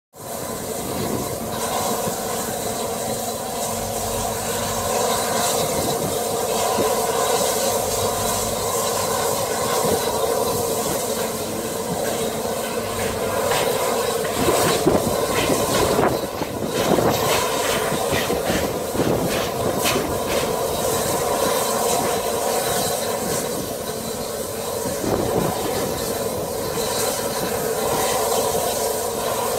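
A rebuilt Bulleid Battle of Britain class steam locomotive, 34052, stands hissing steam steadily, with a few sharp knocks around the middle.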